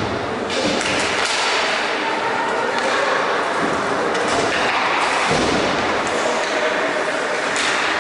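Ice hockey play on a rink: skate blades scraping the ice, sticks clacking, and players' voices. A hard thud comes right at the start as the puck is faced off, and another about five seconds in.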